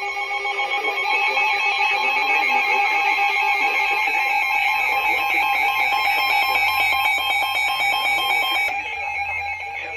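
Emergency weather-radio alert tone: several steady tones sounding together with a pulsing pattern, held for about nine seconds and dropping in level near the end.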